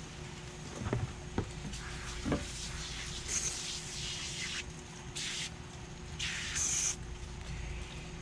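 Aerosol degreaser can spraying in three short hissing bursts in the second half, foaming onto a greasy oil cooler. A few light knocks come earlier.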